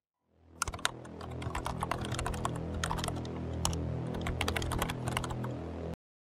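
Computer keyboard being typed on: a quick, irregular run of key clicks over a steady low hum, cutting off abruptly near the end.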